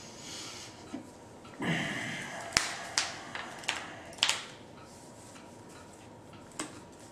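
Magic cards being handled and laid down on playmats: a short rustle, then a string of sharp taps and flicks as cards hit the mat, most of them in the first half and one more near the end.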